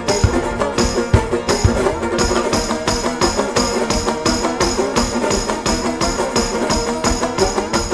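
Instrumental stretch of a folk song with a steady, quick beat and a shaken jingle keeping time.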